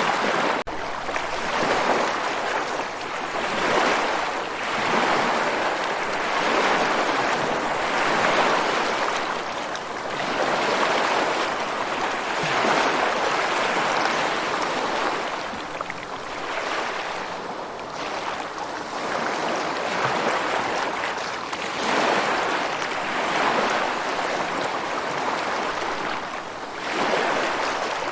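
Ocean surf: waves washing in and drawing back, a steady rush that swells and eases about every two seconds.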